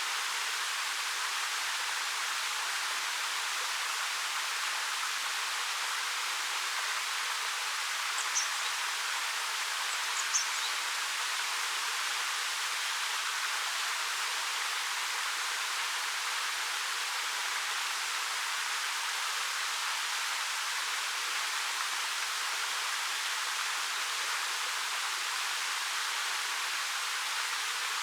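Steady rush of a 13 m waterfall pouring down a rock face, an even hiss without low rumble. A bird chirps briefly twice, about eight and ten seconds in.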